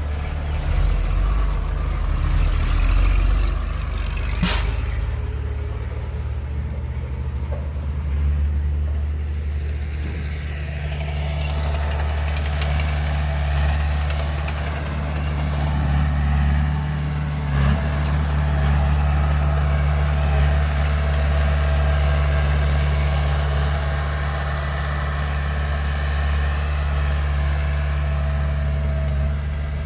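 Heavy diesel engines of a bulldozer and dump truck running at a loading site, a steady low drone. A short sharp burst about four seconds in, and a higher whine that rises around ten seconds in and holds as the machines work.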